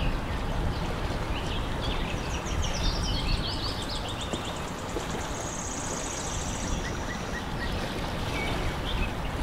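Lakeside ambience: a steady low rush of wind and water, with birds chirping in quick little series and a fast high trill about five to seven seconds in.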